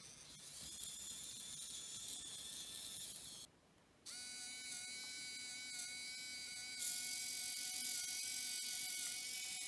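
Small continuous-rotation servo motors running with a steady electric whir and whine. The sound drops out for about half a second a few seconds in, then comes back as a steadier pitched whine that gets a little louder near the end.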